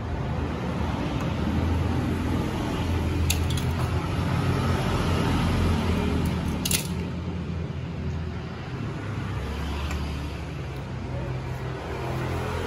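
Steady low engine rumble underneath a few sharp snips of scissors cutting synthetic-leather covering, a few seconds in and again near seven seconds.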